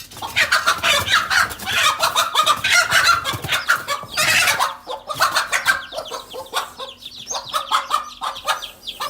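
Hen clucking and squawking in rapid, dense runs of calls.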